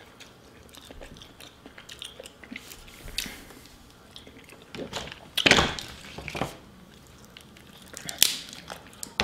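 A person eating close to the microphone: wet chewing and biting into saucy seafood boil food, with a few sharper, louder bites or cracks about halfway through and again near the end, where a crab leg is being snapped apart by hand.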